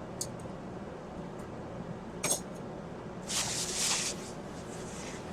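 Kitchen items being handled: a sharp clink a little over two seconds in, then about a second of rustling, over a steady low hum.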